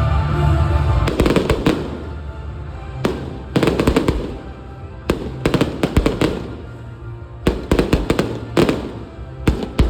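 Aerial fireworks bursting in clusters of sharp bangs and crackles, a new cluster about every two seconds. Music plays underneath, and it is the main sound for the first second.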